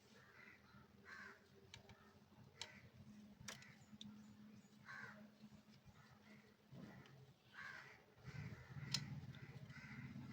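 Faint crow cawing, short calls repeated every second or two, with a few sharp clicks.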